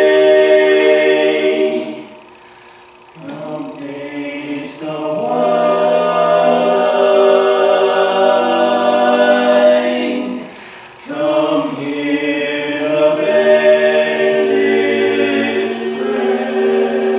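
Male barbershop quartet singing a cappella in four-part harmony, with short breaks between phrases about two seconds in and again about ten seconds in.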